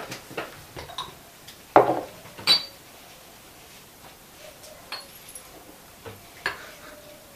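Porcelain teapot and teacups clinking and knocking against each other and the table as tea is served: a scatter of short china clinks, the loudest two about two seconds in, one with a brief high ring.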